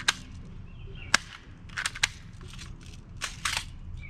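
Spring-powered Walther PPQ airsoft pistol being cocked and fired: a series of sharp clicks and snaps from the slide and the spring shot, the loudest three coming about a second apart, with smaller clicks later on.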